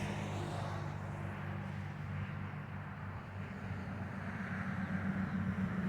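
A swarm of honey bees in a trap box buzzing: a steady low hum, growing a little louder near the end.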